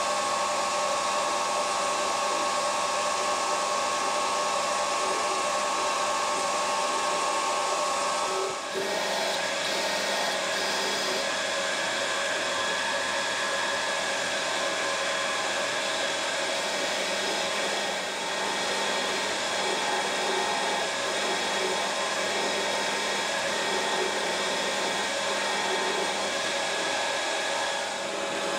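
Metal lathe running steadily with a whine, drilling the tap-drill hole for a 3/8-16 thread into the end of a spinning arbor with a drill held in the tailstock chuck. The sound dips briefly and its tone shifts slightly about eight and a half seconds in.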